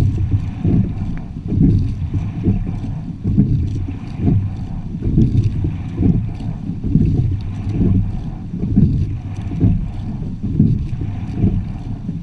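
Wind rumbling on the microphone and water rushing along the hull of a sculling quad shell under way, pulsing roughly once a second.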